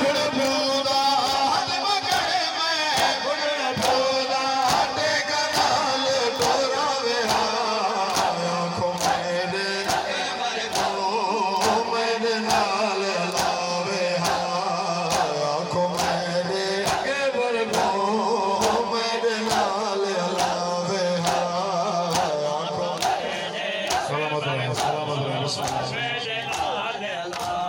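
Men chanting a noha in unison while a crowd strikes their chests with open hands in matam, the sharp slaps coming in step about one and a half a second.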